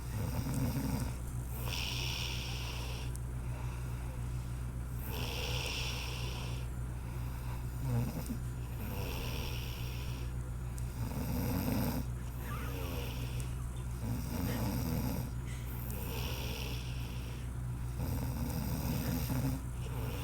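A woman snoring in her sleep, one snore after another in a slow breathing rhythm of a few seconds per breath.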